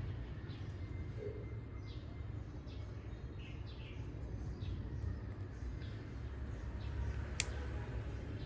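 Faint bird chirps in the background over a steady low hum, with one sharp click about seven seconds in.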